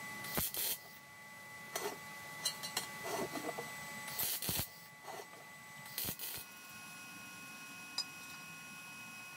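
A pointed metal tool scratching across the face of a steel car wheel in several short strokes, as lines are marked out on the metal. Near the end there is a single sharp click.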